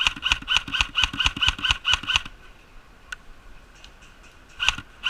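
Airsoft gun firing a rapid string of shots, about five a second, each with a sharp crack and a short ring. It stops a little over two seconds in, and a second string starts near the end.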